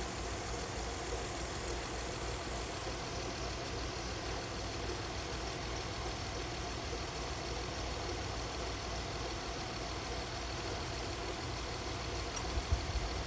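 Car engine idling steadily with a low, even rumble, plus a few faint ticks near the end.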